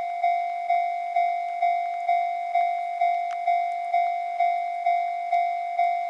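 Japanese level-crossing warning bell ringing, a steady clang repeated about twice a second, each strike fading quickly: the crossing's alarm signalling an approaching train.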